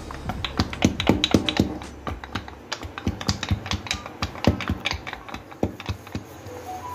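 Wooden rolling pin clicking and knocking against the rolling board as puff pastry dough is rolled out: a rapid, irregular run of sharp clicks, thinning out in the second half.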